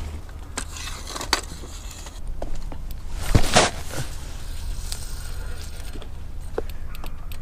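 Handling noise from a hand-held outdoor camera: a steady low rumble on the microphone with scattered clicks, and a brief loud rustle about three and a half seconds in.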